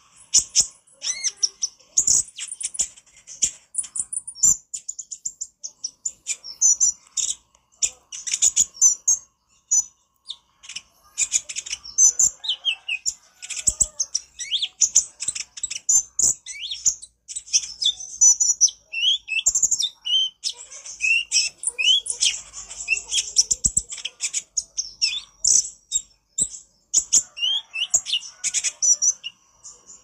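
Male kolibri ninja (konin) sunbird singing a fast, high-pitched chattering song of rapid twittering notes and short sweeps, in bursts with brief pauses.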